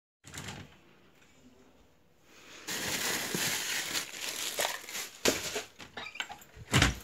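Handling noise and rustling as a phone camera is carried and moved about, then a few sharp knocks, the loudest a dull thump near the end.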